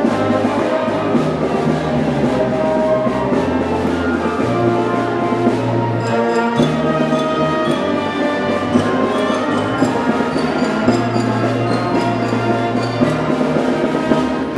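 School concert band playing a military service song, with brass and drums.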